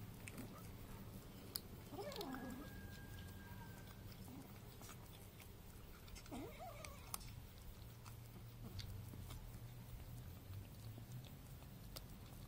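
Kitten chewing food, faint, with small wet clicks and twice a short squeaky vocal noise, about two seconds in and again about six seconds in. A steady low hum runs underneath.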